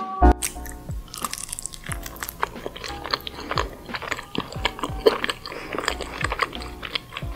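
Close-miked ASMR chewing of stuffed grape leaves (dolma): many small, irregular mouth clicks and chewing sounds, with faint background music underneath.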